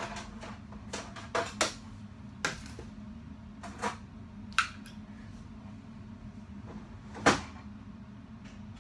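A string of sharp knocks and clacks, about seven spread over several seconds with the loudest near the end, from objects being handled and set down on a desk, over a steady low hum in the room.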